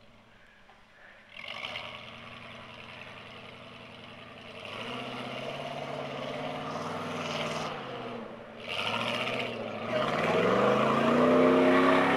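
Ford Bronco's engine working under load as it attacks a steep muddy hill, building in about a second in and revving up sharply about ten seconds in to its loudest near the end.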